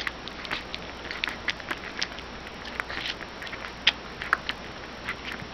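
Newborn puppy suckling milk from a baby bottle: irregular wet sucking clicks and smacks, several a second, over a steady hiss.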